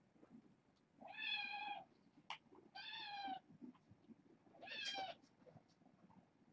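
A young kitten meowing three times, high-pitched calls each up to about a second long.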